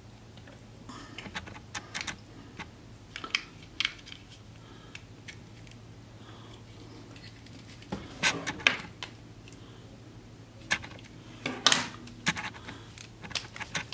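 Small plastic clicks and taps from handling a USB flash drive and a white USB card-reader adapter as the drive is pushed into it, coming in short scattered clusters, with more handling clicks near the end as a smartphone is picked up.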